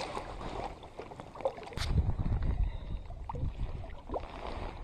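Lake water lapping and sloshing against shoreline rocks, with wind buffeting the microphone as low rumbling gusts from about two seconds in, after a brief knock.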